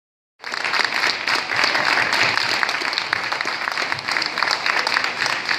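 A crowd applauding, many hands clapping densely together; it starts abruptly about half a second in.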